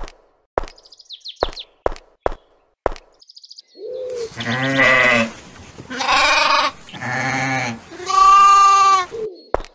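Bleating of sheep or goats, four drawn-out bleats starting about four seconds in, the last one the longest and loudest. Before them come a few sharp taps and two brief high chirps.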